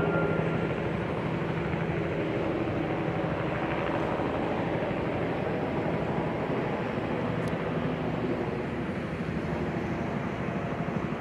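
Metra passenger train running, a steady rumble with a low engine hum.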